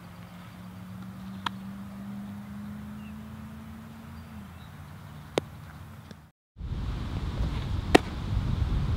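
Sharp smacks of a baseball into a leather glove: three single hits, about a second and a half in, at about five seconds and near the end, the last the loudest. A low steady drone sits under the first half, and after a brief dropout about six seconds in a louder steady outdoor noise carries on.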